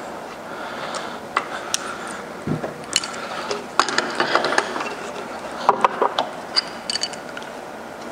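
Metal clicks and clinks of an adjustable wrench working the bolt-on spools off an automatic transmission's torque converter, coming in scattered knocks and short clusters. A steady background noise runs underneath.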